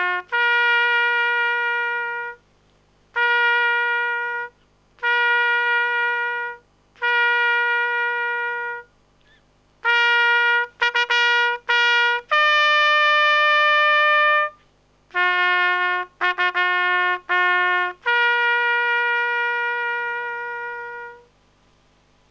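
Solo trumpet playing a slow, bugle-style call on only a few notes. Most notes are long and held with short breaks between them. There is a run of quick repeated notes near the middle, one higher held note about two-thirds of the way in, and a final long note that fades out.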